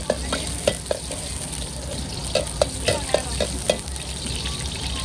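Long steel ladle clanking and scraping against a wok while food sizzles in hot oil. There are a few taps in the first second and a quicker run from about two and a half to nearly four seconds in.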